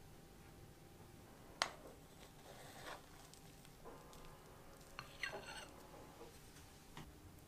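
Metal spoon scooping soft cream cake from a glass baking dish onto a plate: a few light clinks of the spoon against glass and plate, with a brief ring. The sharpest clink comes about one and a half seconds in, and a quick cluster follows around five seconds in.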